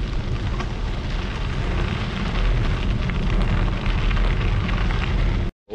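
Wind buffeting the microphone of a bike-mounted action camera while riding: a steady low rumbling rush. It cuts off abruptly near the end.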